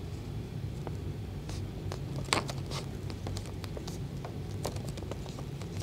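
A paper card template being folded and creased by hand: faint scattered crackles and scrapes of paper, over a steady low hum.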